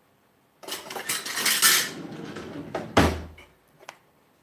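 Metal kitchen utensils and dishes clattering and scraping for about a second and a half, then one sharp knock about three seconds in.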